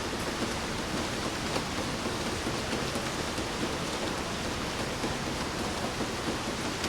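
Steady heavy rain, an even hiss of falling water with scattered individual drops ticking.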